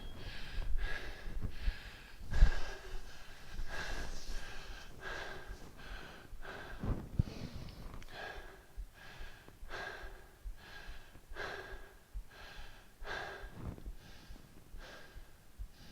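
A man breathing hard and rhythmically, short forceful breaths about one or two a second, while exercising through a work interval. A few dull low thuds come between the breaths.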